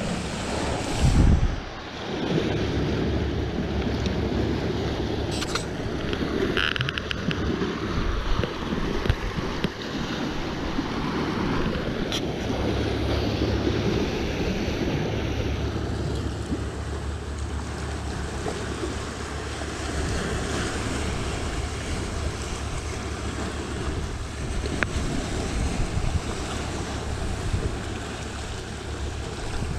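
Sea waves washing in steadily with wind buffeting the microphone, a strong low gust about a second in, and a few faint clicks.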